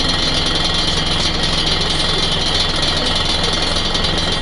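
Scania L113CRL bus's 11-litre diesel engine idling steadily, heard from inside the passenger saloon while the bus stands still, with a steady high-pitched whine over the low engine hum.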